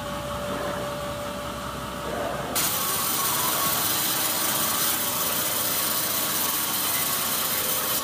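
Steady machine hum, then about two and a half seconds in an abrupt switch to a band sawmill's blade sawing a teak slab: a steady, loud, hissy sawing noise.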